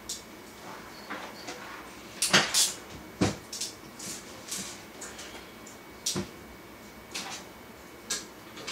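Irregular knocks and clicks, about a dozen scattered through, the loudest a pair a little over two seconds in and a sharp knock about three seconds in.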